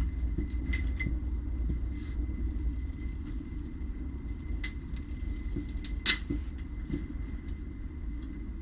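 Air Arms S410 pre-charged pneumatic air rifle firing a single shot, a sharp crack about six seconds in, over a steady low rumble of wind on the microphone.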